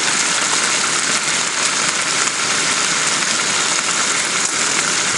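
Pork frying in a pan on a Primus 2069 gas camping stove: a steady, even sizzle with a crackling hiss.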